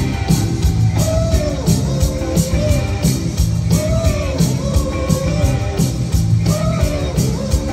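Live rock band playing loud: drums keep a steady beat under electric bass, while an electric guitar plays a lead line that bends up and down in pitch in repeated phrases about every three seconds.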